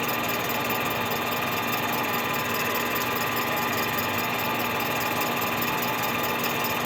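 Metal lathe running steadily with an even hum and several steady whining tones, facing the base of a Stihl MS 261 chainsaw cylinder with a carbide-tipped cutter in a light cut.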